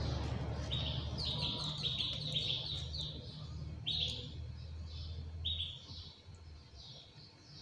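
Small birds chirping: a quick run of short high chirps, then a few spaced single chirps, over a steady low hum that stops about six seconds in.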